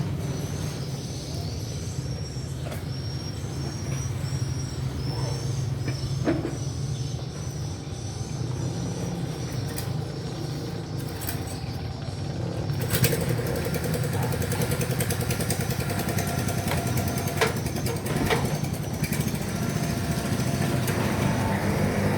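An engine running steadily at a low hum, with a few sharp knocks over it in the second half.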